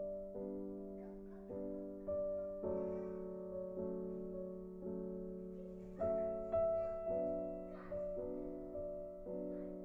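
Background piano music: slow notes struck about once a second, each ringing out and fading.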